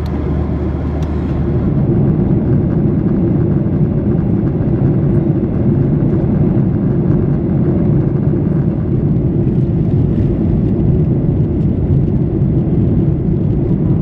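Boeing 737-800 jet engines and airframe giving a loud, steady low rumble, which swells slightly about two seconds in and then holds.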